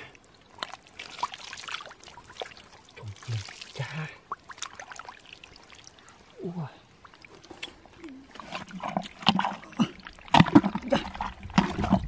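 A hand and arm groping in a water-filled burrow in mud: wet squelching, trickling and small splashes, with scraping of dry earth. Loudest in the last two seconds.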